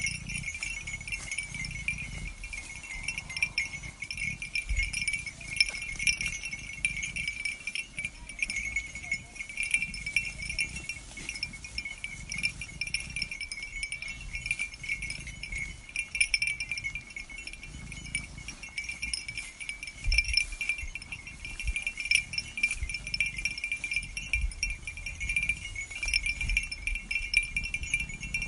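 Small bells on a grazing sheep flock jingling continuously in a high, shimmering chime, with soft low thuds underneath.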